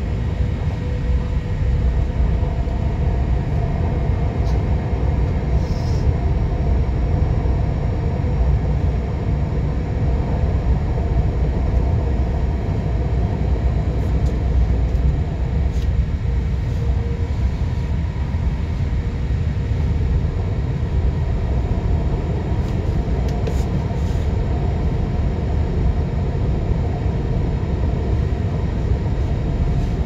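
Steady running sound inside a BM 72 electric multiple unit: a continuous low rumble from the wheels, running gear and traction motors, with faint steady motor tones above it.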